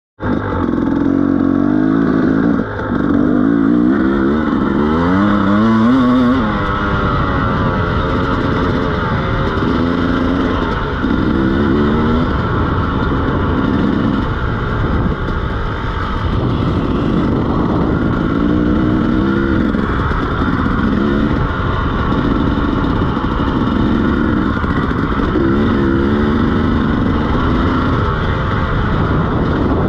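KTM 300 two-stroke dirt bike engine under hard throttle. Its pitch climbs and drops again over and over as the rider accelerates, shifts and backs off.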